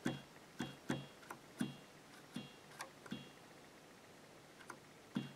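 Casio LK-33 electronic keyboard playing about ten short, quiet notes at the same pitch, each dying away quickly, at irregular intervals: the repaired key being pressed over and over and now sounding each time.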